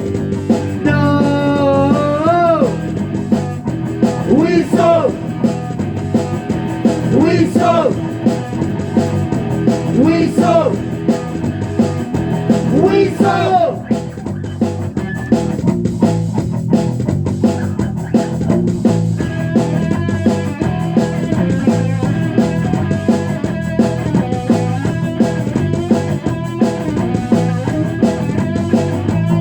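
Rock band playing a passage without lyrics: drums, bass and electric guitar, with a lead line of sliding, bending notes over the first dozen seconds, then steadier held notes.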